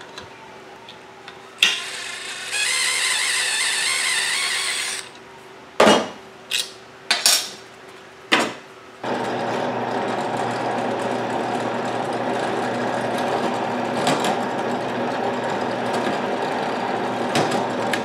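A cordless drill-driver runs for a couple of seconds, backing a screw out of wood. A few sharp knocks from handling follow. From about halfway through, a benchtop drill press motor runs steadily while the bit drills into a pine block.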